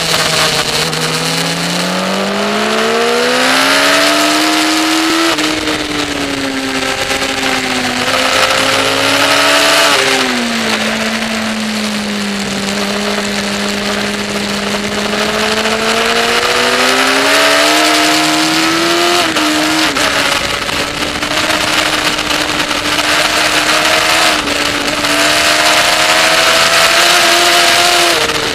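Onboard sound of a sport motorcycle's engine at racing speed on track, its note climbing hard under acceleration and dropping sharply at gear changes and braking for corners, with a long steadier stretch in the middle, over a constant rush of wind.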